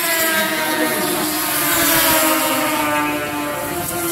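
A pack of racing snowmobiles with two-stroke engines running at high revs around the ice oval. The pitch rises and then falls as the sleds pass.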